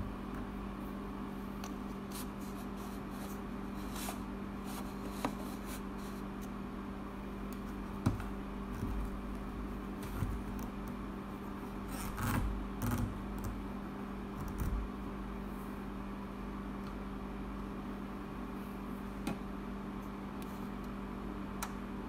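Overhead projector's cooling fan and motor running with a steady hum, with a few small knocks and scrapes from the tray of liquid being handled on its glass, most of them in the middle stretch.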